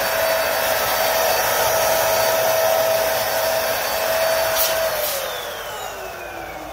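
Electric balloon inflator running with a steady hum and rush of air as it fills a large balloon; about five seconds in it is switched off and the motor's pitch falls as it winds down.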